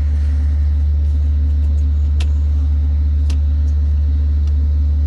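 Steady low drone of an idling diesel engine, with a couple of light clicks about two and three seconds in as wire connectors are pulled off the evaporator blower's terminals.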